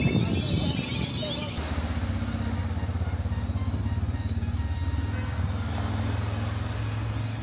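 A motor vehicle engine running steadily, an even low throb, which starts at an abrupt change about a second and a half in, after high chirping.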